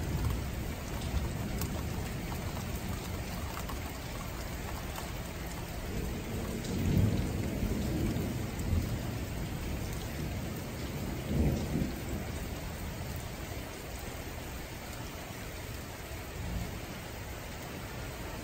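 Steady rain falling during a thunderstorm, with thunder rumbling low: a longer roll about six seconds in and a shorter one about eleven seconds in.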